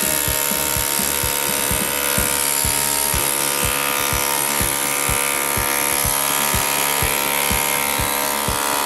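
Power drill running continuously as it works into a brick wall, a steady motor whine with a regular knocking about four times a second, stopping abruptly just after the end.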